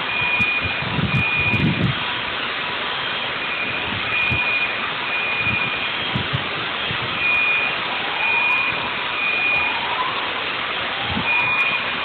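Steady rushing roar from a surveillance camera's microphone, with a high electronic alarm tone beeping on and off throughout. A few low rumbles come in the first two seconds, and a few rising whoops near the end.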